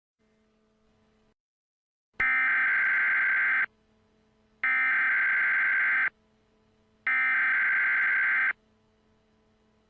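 Emergency Alert System SAME header: three identical bursts of screechy digital data tones, each about a second and a half long and a second apart, beginning about two seconds in.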